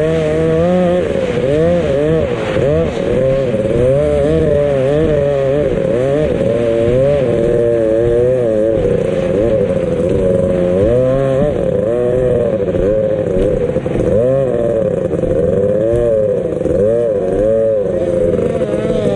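Racing boat engine running at high revs, its pitch repeatedly swinging up and down as the throttle and load change.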